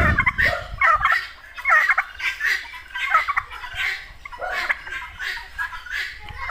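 Flock of domestic turkeys and guinea fowl calling, short harsh calls repeating about twice a second, with a low rumble in the first second.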